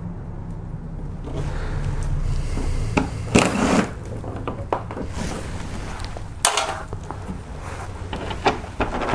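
Compact cordless drill with an 8 mm socket running in short spells as it backs out the engine splash shield's bolts, with a few sharp knocks and clicks as the tool and plastic panel are handled.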